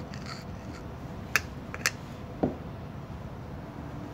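Workshop handling noises: two sharp clicks about half a second apart, then a duller knock, over a steady low hum.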